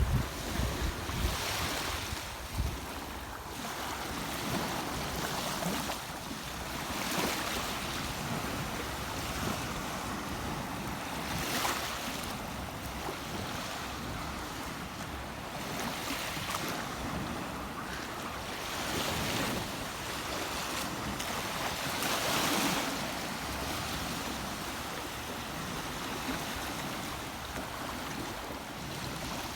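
Rushing river water, a steady hiss that swells and eases every few seconds, with wind buffeting the microphone near the start.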